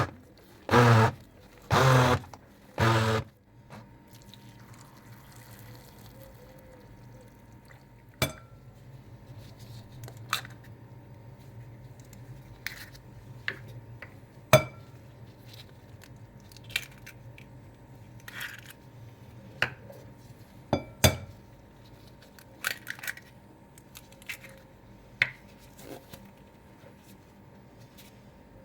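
Kitchen utensil and dish sounds: scattered clinks and knocks, with three short, loud pitched sounds about a second apart near the start, over a low steady hum.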